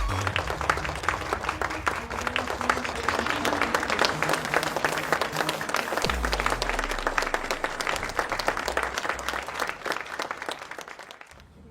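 Audience applauding over low background music; the clapping dies away near the end.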